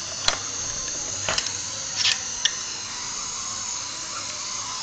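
Metal tongs clicking and tapping against a small dyed marble tile, a handful of short sharp taps in the first two and a half seconds, over a steady hiss.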